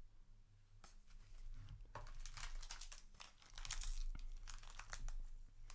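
Foil booster-pack wrapper crinkling and tearing, a dense crackly rustle that starts about two seconds in after a single faint click.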